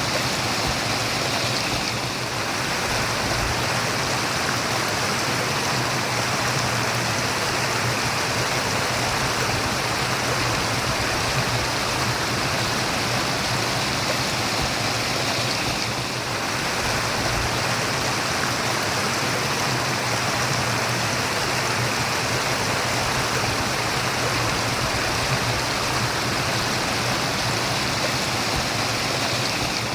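Stream of water running and murmuring steadily, a dense even rush.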